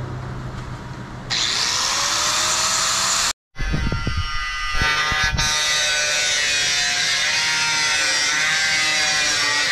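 Handheld angle grinder running against the end of a stainless-steel barrel, a loud steady high-pitched grinding with many ringing tones that sets in about a second in. A brief cut in the sound comes a little over three seconds in.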